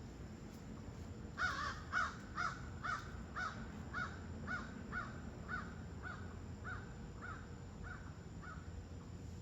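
A bird calling in a long series of short, harsh, evenly spaced calls, about two a second. The calls start about a second and a half in and fade gradually toward the end.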